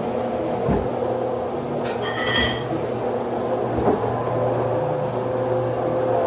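Vacuum cleaner motor running steadily, with a few dull knocks and a brief metallic clink about two seconds in.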